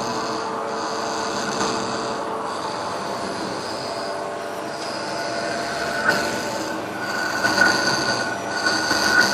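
Matsuura MC600VF vertical machining centre (15,000 rpm spindle) with an abnormal servo noise: a steady whine made of several tones, with a high tone that cuts out and returns about every two seconds. About six seconds in, a sharper squeal joins with a few short scraping peaks.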